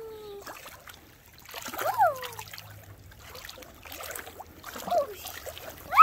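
Splashing and trickling water as a child wades against a shallow creek's current, with short wordless vocal calls about two seconds in and again near the end.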